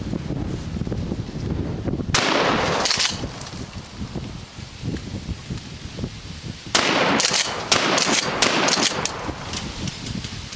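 Remington 870 pump-action 12-gauge shotgun firing birdshot: two loud shots about four and a half seconds apart, the second followed by a quick run of sharp clacks.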